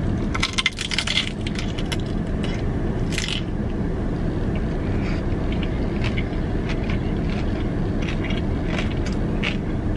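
Crunching bites into a crisp-fried tortilla, with a dense crackle about half a second in and another burst around three seconds, then chewing with scattered small crackles. A steady low hum of the car cabin runs underneath.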